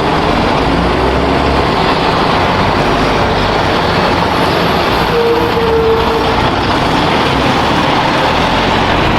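Heavy truck engine running steadily, a loud even rumble, with a brief faint tone about five seconds in.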